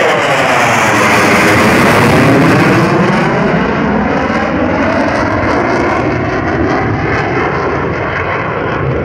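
F-16 fighter jet passing, its jet engine noise swelling to its loudest about two seconds in and then easing off a little, with a sweeping phasing in the noise as it goes by.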